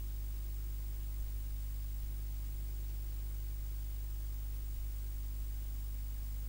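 Steady low mains hum, an unchanging electrical buzz with no other sound standing out.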